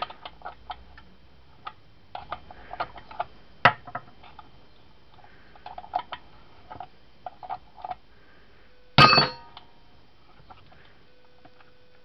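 Small metallic clicks and clinks of tools working the chainsaw's flywheel nut loose, in irregular clusters with a sharp knock about four seconds in. About nine seconds in comes a loud metal clank that rings briefly.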